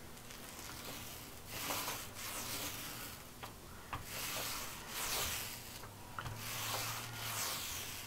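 Small paint roller rolling wet paint onto a wall panel: a soft rubbing hiss that swells and fades with each of a few long up-and-down passes.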